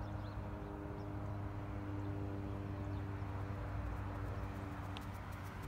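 Steady low hum with a few even tones over outdoor background noise, and a few faint clicks in the second half.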